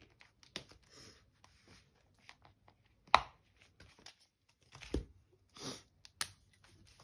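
Hands handling a cash-stuffing binder and its plastic envelopes on a tabletop: scattered light taps, clicks and short rustles, the sharpest knock about three seconds in.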